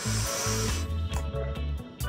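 Background music with a steady bass beat. A brief high hiss fades out just before a second in.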